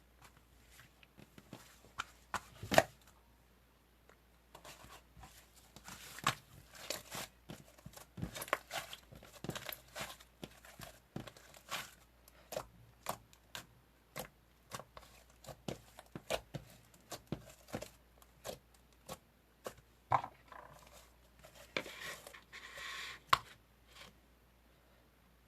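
Close handling noises: irregular taps and clicks mixed with short bursts of crinkling and tearing, with a longer rustle near the end.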